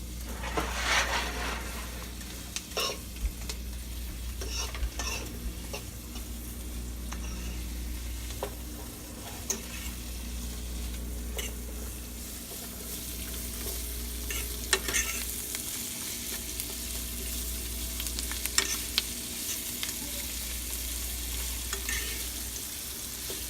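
Asparagus sizzling in butter in a frying pan, with scattered short clicks and scrapes of a utensil stirring it.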